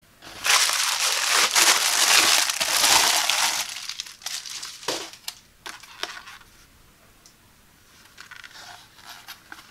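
Plastic padded mailer being torn open and crinkled for about three seconds, then rustling and several sharp clicks and taps as a plastic blister pack is pulled out and handled. Faint crinkling of the blister pack near the end.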